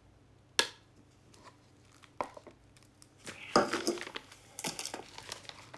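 Kitchen handling sounds: a food packet crinkling and rustling, with light clicks and knocks of kitchenware. A sharp click comes about half a second in, and the loudest crinkling comes about three and a half seconds in.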